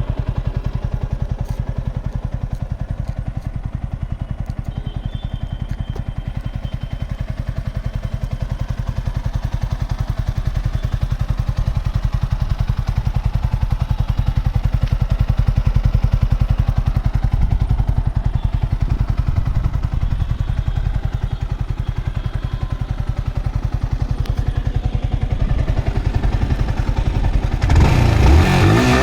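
Yamaha R15M's 155 cc single-cylinder engine idling steadily with an even exhaust pulse, then revved up near the end, the pitch rising and falling.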